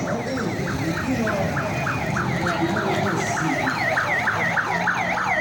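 Electronic siren yelping in fast, repeated rises and falls, about four a second, over a steady low hum.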